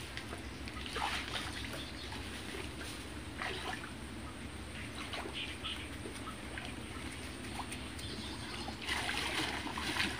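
Feet wading through shallow muddy water: scattered splashes and sloshes of steps, growing busier and louder near the end.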